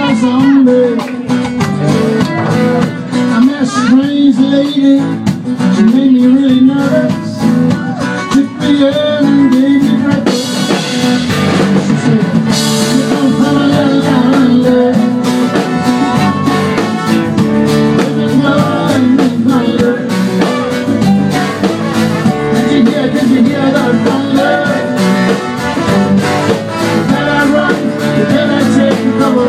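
Live band music: a singer with guitar, drums and percussion, played loud in a small club.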